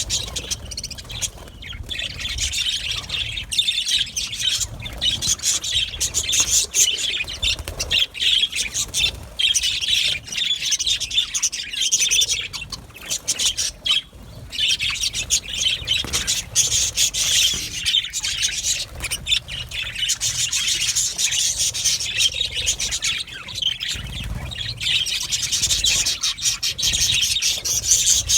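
A flock of budgerigars chattering together: dense, overlapping chirps, warbles and squawks with only brief lulls.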